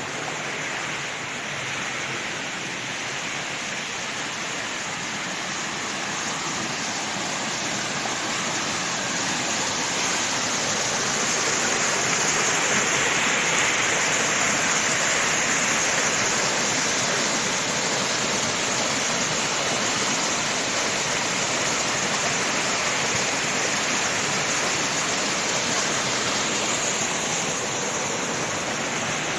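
Waterfall rushing steadily, a little louder partway through.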